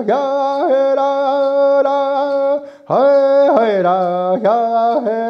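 A man singing a traditional song unaccompanied, in long held notes. The singing comes in two phrases with a brief break for breath a little after halfway.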